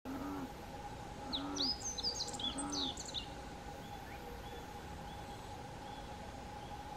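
Birds chirping outdoors: a quick burst of high twittering notes for about two seconds, with three short low calls in the first three seconds, then only faint, evenly spaced high peeps over a steady faint hum.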